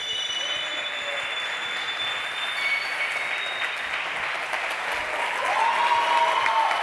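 Audience applauding, with whistles, and cheering voices rising about five seconds in.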